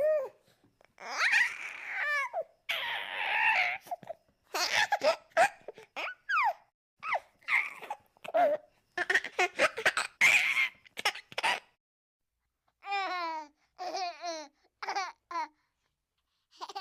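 A baby laughing in repeated bursts: high squeals, breathy giggles and quick chains of laugh pulses, separated by short silent gaps.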